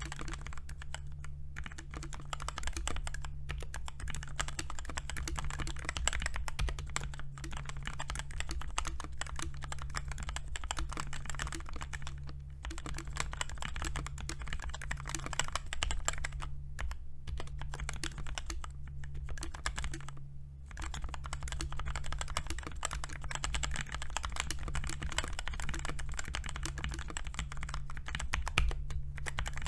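Continuous typing on a Redragon Kumara K552 tenkeyless mechanical keyboard modded with Krytox-lubed linear Outemu Red switches, lubed and taped stabilizers, and foam under the plate: a dense run of keystrokes with a few brief pauses.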